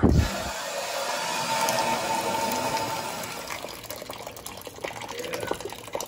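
Water rushing into a steam boiler through its opened feed line: a steady hiss with a faint whistle. After about three and a half seconds it eases into a spattering of water pouring from the sight-glass drain valve into a plastic bucket, the fresh water flushing rusty sludge out of the valve.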